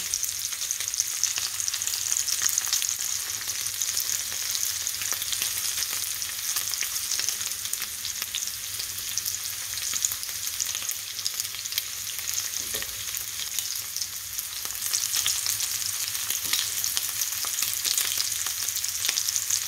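Pork tocino sizzling in hot oil in a cast-iron skillet: a steady hiss full of small pops and crackles. A spatula stirs and turns the pieces now and then.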